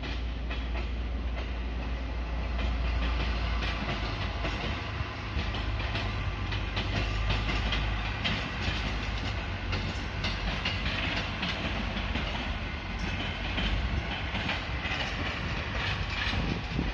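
Train running along the tracks: a steady low rumble with irregular clicking and clacking of wheels over rail joints and switches.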